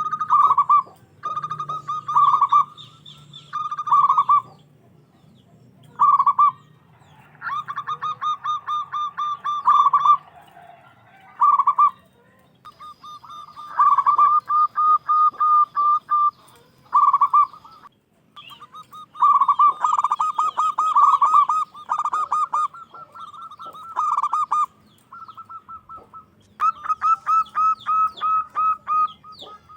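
Zebra dove (perkutut) cooing loudly in repeated bouts of rapid rolling, pulsed coos, each bout lasting a second or two with short pauses between.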